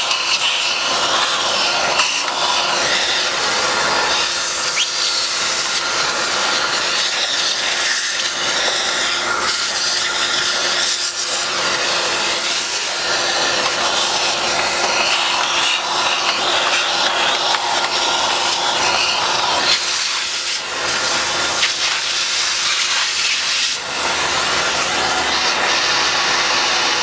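Conventional household vacuum cleaner running steadily, sucking up the leftover dust and hair from a robot vacuum's dustbin.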